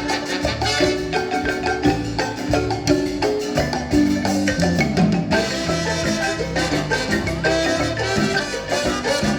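Marimba playing a fast, rhythmic dance tune with many quick struck notes over a low bass line; the sound grows fuller and brighter about halfway through.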